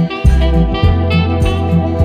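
Background music: an upbeat instrumental with a steady beat of about three strokes a second over a strong bass line.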